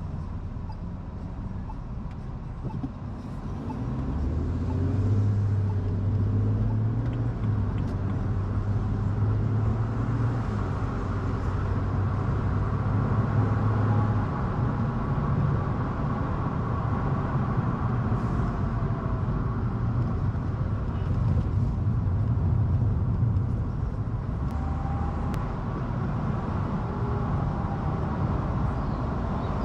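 Car engine and road noise: the car pulls away from a stop about four seconds in, then cruises with a steady low rumble.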